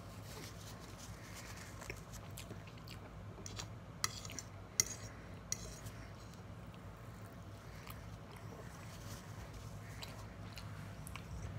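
Quiet table sounds: a metal fork clinking and scraping on a ceramic dinner plate and a paper napkin being handled, with a few sharp clicks between about four and five and a half seconds in, over a low steady hum.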